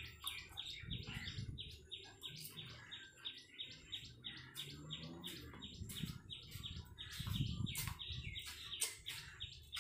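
Small birds chirping, faint and continuous: a rapid run of short, high chirps, several a second.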